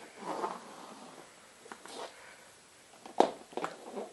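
Hard plastic Schleich horse figurines being handled and knocked on a wooden floor: a soft rustle, then a few sharp clacks near the end.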